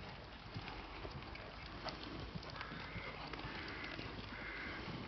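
Faint hoofbeats of a horse trotting on a sand arena surface, soft scattered thuds over a steady low rumble.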